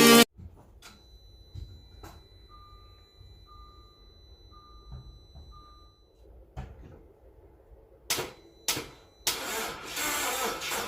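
A few clicks and four short, even beeps, then two brief bursts from the Audi A4 2.0T's starter, and about nine seconds in a steady cranking of the engine, which turns over without catching: the crank-no-start fault.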